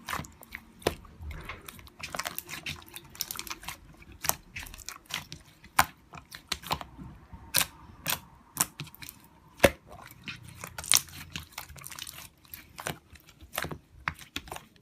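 Irregular sharp clicks and crunches close to the microphone, a few a second, with one louder click about ten seconds in.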